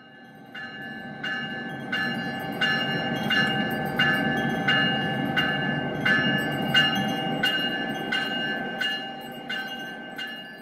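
Railroad bell struck in a steady rhythm, about one and a half strokes a second, each stroke ringing on, over the steady rumble of a train. The sound swells in at the start and dies away near the end.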